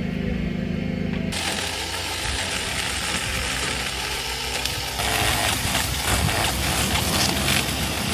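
WORX cordless pole pruner's small electric chainsaw running and cutting into an olive branch. A steady motor hum gives way suddenly to a harsher, noisier cutting sound about a second in, which grows louder about five seconds in.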